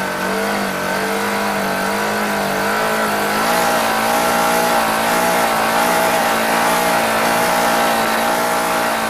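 Off-road side-by-side's engine running as it drives over cinders, its pitch wavering and stepping up a little about three and a half seconds in, with steady wind and tyre noise over the open cab.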